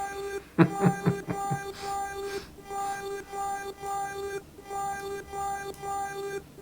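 Software synthesizer patch in VCV Rack playing a buzzy pitched note that pulses on and off steadily, about twice a second. A burst of sharp clicks comes about half a second to a second and a half in.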